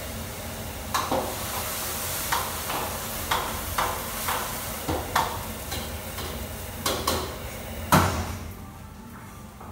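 Stir-frying in a wok: food sizzling over the burner while a metal utensil clanks sharply against the wok again and again, the loudest strike near the end. The sizzle drops away soon after that last strike.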